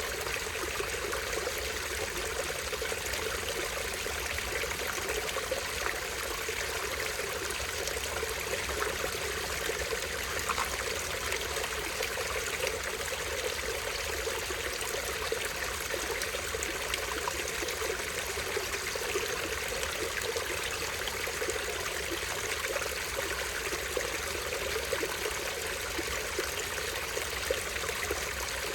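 Small stream flowing steadily, water trickling and falling in an even, unbroken rush.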